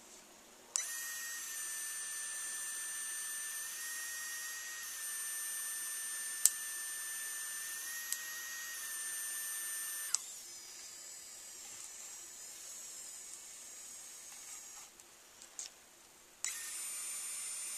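3Doodler 3D printing pen extruding plastic, its drive motor giving a steady high-pitched whine with a sharp click about six and a half seconds in. The whine stops about ten seconds in, leaving a fainter high hum, and starts again near the end.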